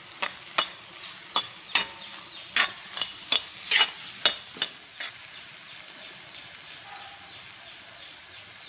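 Steel spatula scraping and knocking against the pan while stirring fried onion masala with chilli powder: sharp clicks about two a second for the first five seconds, then only a faint sizzle of the frying masala.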